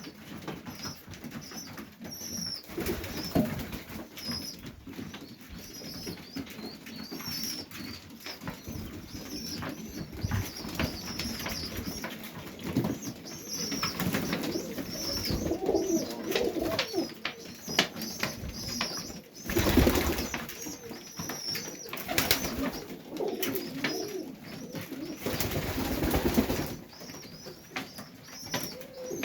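Domestic pigeons cooing in a loft, mixed with many short high thin peeps. Two longer noisy rustling bursts come about two-thirds of the way through and again near the end.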